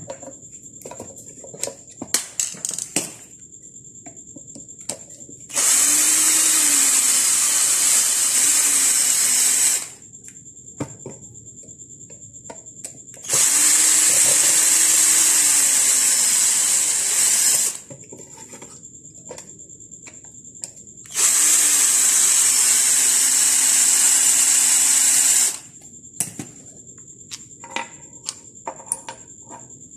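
Electric screwdriver run three times, about four seconds each, backing out the screws that hold the head of a water purifier's booster pump. The motor pitch rises, holds and drops off with each run. Small clicks and knocks of handling come between runs.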